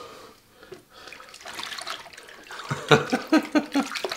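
Soapy cleaning water splashing and sloshing as something is rinsed in it, with a quick run of louder splashes about three seconds in.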